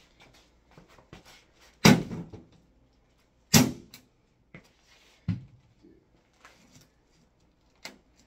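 Wooden pool cue striking a plastic CD/cassette player wrapped in a garbage bag: three hard blows about a second and a half apart, with lighter knocks between.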